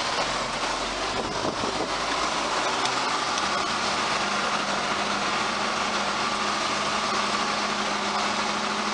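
Tractor engine running steadily while hauling a load of bales; a low steady hum settles in about three seconds in.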